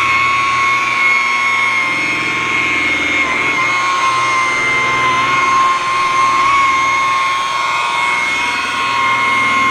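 Electric rotary polisher buffing a boat's gelcoat with cutting compound, running at a steady high whine with small wobbles in pitch as the pad works the surface.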